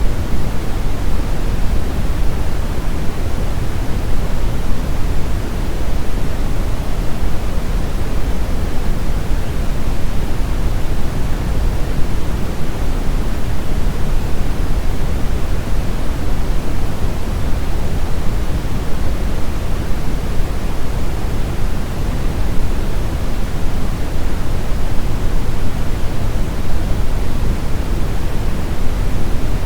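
Brown noise: a steady, even hiss weighted toward the deep low end, like a dull rumbling rush, unchanging throughout.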